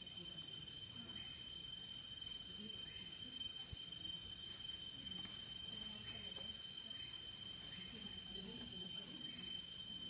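Steady chorus of tropical forest insects, a continuous shrill buzz at several high pitches that holds unbroken throughout.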